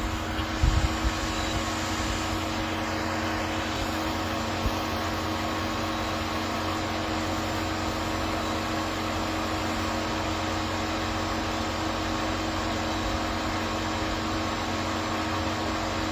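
Steady mechanical hum with fan-like noise and a constant low drone, with a few short knocks about a second in.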